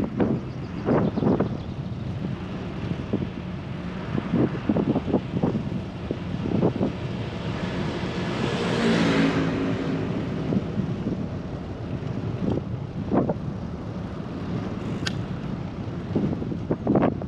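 Wind on the microphone of a moving bicycle, with scattered short knocks. About halfway through, a motor vehicle passes, its sound rising and falling away.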